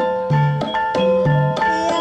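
Gamelan accompaniment for an ebeg dance (gending ebeg): struck metallophone-like notes ringing over a steady beat of low drum strokes.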